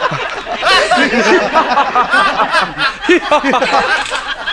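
Men laughing heartily together, several voices overlapping in loud, repeated bursts of laughter.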